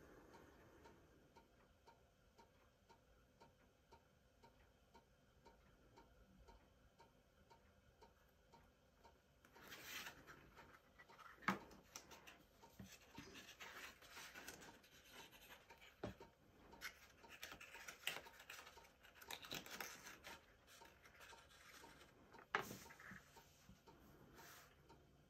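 Faint rustling and rubbing of cardstock as hands press and hold the glued flaps of a paper box base in place, with a few sharp taps. A faint regular ticking runs underneath and is heard alone for the first several seconds.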